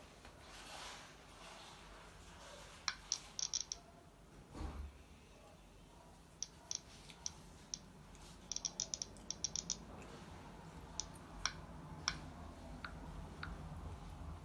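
Smartphone being operated: faint clusters of short, sharp ticks in quick succession, with scattered single clicks, as when a time is set for an alarm or timer. A soft thump comes about five seconds in.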